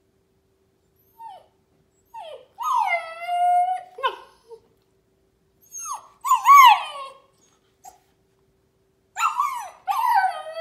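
Husky puppy whining and howling in three drawn-out bouts, high-pitched calls that slide up and down in pitch, with short gaps between. The puppy is protesting at being confined in a playpen.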